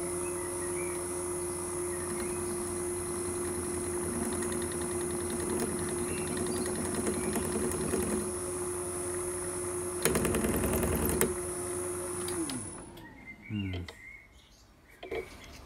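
Drilling machine spindle running with a steady whine while a centre drill cuts into a stuck grub screw, with a louder rattling burst of cutting about ten seconds in. Near the end the spindle is switched off and spins down, its pitch falling.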